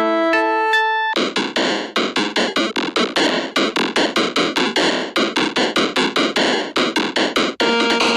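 Retro-style synthesizer music: a short melody of clean held electronic notes, then a fast, even run of noisy percussive hits at about five a second, and held notes again near the end.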